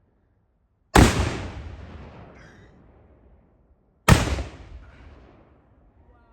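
Two artillery cannons firing blank charges one after the other in running fire, about three seconds apart; each boom dies away in a long rolling echo.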